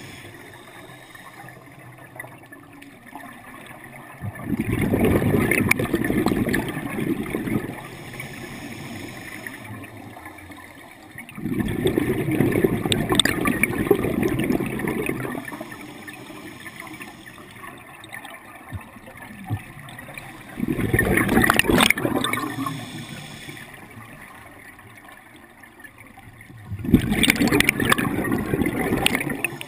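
Scuba diver breathing through a regulator underwater: four bursts of exhaled air bubbling out, each two to four seconds long and about seven seconds apart, with a quieter hiss between them.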